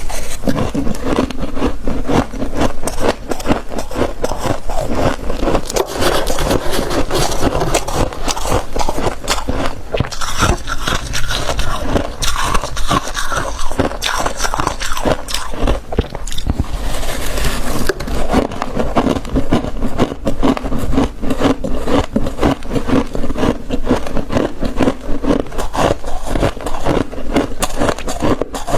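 Thick fluffy frost being scraped and broken off inside a deep freezer: a dense, continuous run of crunching, crackling scrapes.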